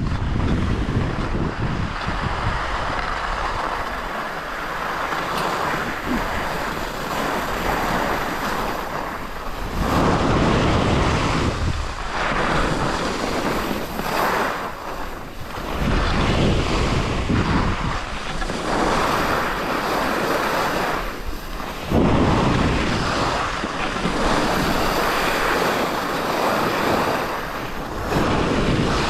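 Skis sliding and scraping over hard-packed snow during a downhill run, with wind rushing over the GoPro's microphone. The rushing noise swells and eases every few seconds.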